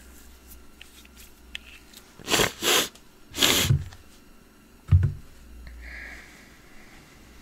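A man coughing: two quick coughs, a longer one, then a short sharp cough, the loudest, about five seconds in.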